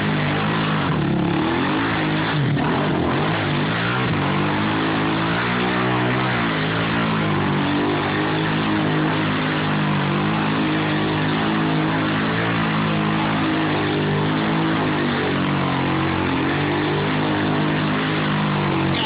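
ATV (four-wheeler) engine running hard, its pitch rising and falling again and again as the quad is revved through tight circles in mud.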